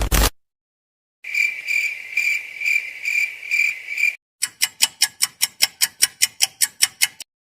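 Cricket chirping sound effect: a high, pulsing chirp repeating a little over twice a second for about three seconds. It is followed by a quick run of about fifteen evenly spaced sharp clicks.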